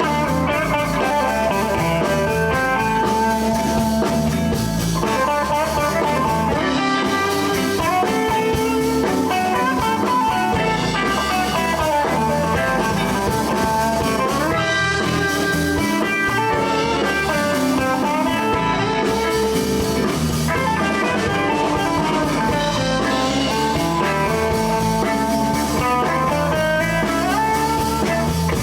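Live blues band playing an instrumental passage: guitars, bass and drums, with a lead line that bends in pitch.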